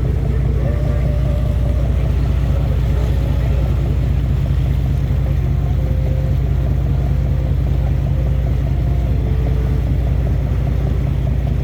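Boat engine running steadily: a constant low drone with a fast, even pulse.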